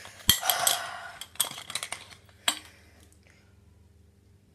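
Stainless steel drink bottle being opened and handled: a sharp click, a short rushing sound, then a few light metallic clinks over the next couple of seconds.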